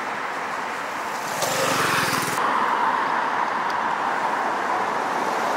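Steady road-traffic noise from passing cars. About a second and a half in, a brighter hiss rises over it for about a second and then cuts off sharply.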